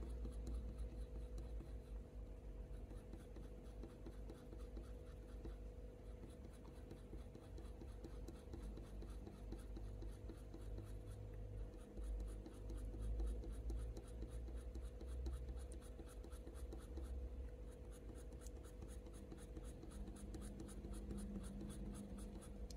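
Faint scratching of a Faber-Castell Polychromos colour pencil on hot-pressed watercolour paper, many quick short strokes in a row as dark fur is built up.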